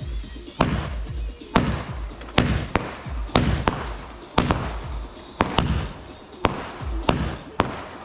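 Multi-shot firework cake firing a rapid series of shots: about a dozen sharp bangs, one or two a second, each with a short echoing tail.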